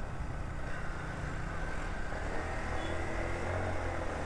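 Single-cylinder motorcycle engine running at low town speed, heard from a camera on the moving bike under steady wind and road noise; a faint engine tone rises gently in the second half as it pulls away.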